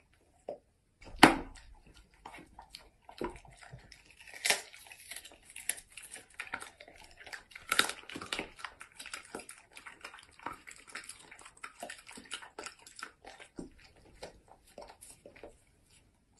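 German shepherd dog chewing and crunching a pork rib: a long run of irregular sharp crunches, the loudest about a second in.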